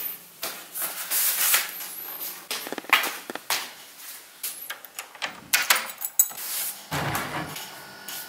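Irregular knocks, clicks and rustles of someone moving across tiled floors with a hand-held camera, with a louder thud about seven seconds in.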